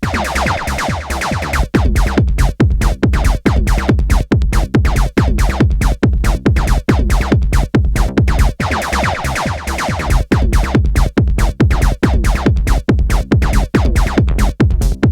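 Live electronic music played on hardware synthesizers and a drum machine: a steady, evenly spaced beat over deep bass. A brighter synth phrase comes in briefly at the start and again about nine seconds in.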